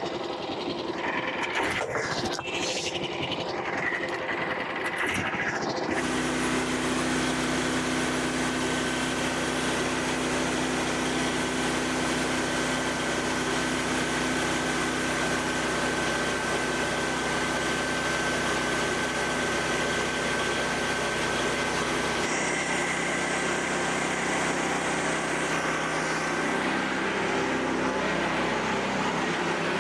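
Frontier OS27 portable sawmill running, its small engine going steadily. The sound changes suddenly about six seconds in, turning fuller with a steady tone, and shifts again a little past twenty seconds.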